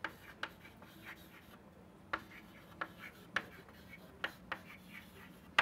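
Chalk writing on a chalkboard: an irregular string of taps and short scratches as letters are written, the sharpest tap near the end.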